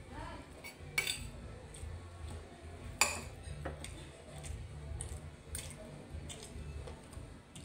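Metal spoon and fork clinking and scraping on a ceramic plate as food is cut, with two sharper clinks about one and three seconds in. A low steady hum runs underneath.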